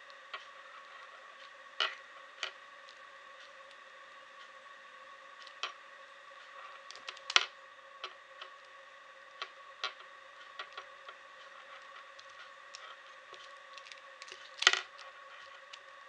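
Small plastic Rubik's cube being turned by hand: irregular clicks and clacks as its layers snap round, with two louder clacks, one about seven seconds in and one near the end. A steady faint hum runs underneath.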